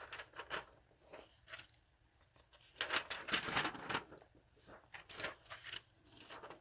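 Old magazine pages and paper clippings rustling and sliding as they are handled and turned over, with the loudest rustling about three seconds in.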